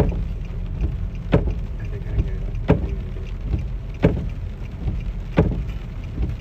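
Inside a car driving on a flooded, rain-soaked road: a steady low rumble of the car and its tyres in water, with the windshield wiper knocking at a regular beat about once every second and a third.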